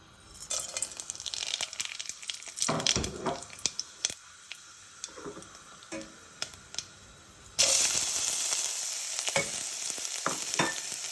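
Sliced onion, grated ginger and garlic frying in hot vegetable oil in a pan, with crackles and spoon clicks. About seven and a half seconds in, the sizzle jumps abruptly to a much louder, steady hiss.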